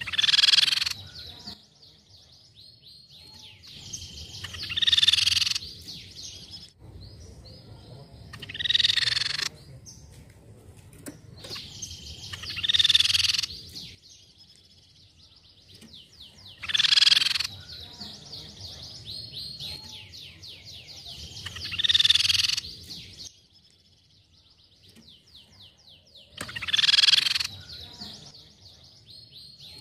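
Crescent-chested babbler (tepus pipi perak) singing: seven loud phrases of about a second each, one every four to five seconds, with fainter rapid trilling between them. It is a lure song, meant to set other birds singing.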